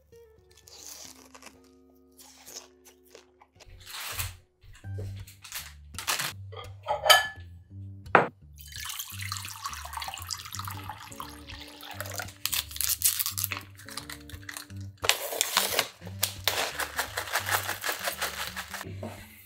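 Water poured from a pitcher into ceramic bowls in two long pours, the second a little after midway, over background music. A few sharp knocks come earlier, before the pouring.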